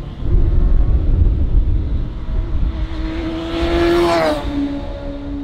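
Classic racing superbike passing at speed. Its engine note climbs and gets louder as it approaches, then drops in pitch as it goes by about four seconds in. A heavy rumble of wind buffets the microphone throughout.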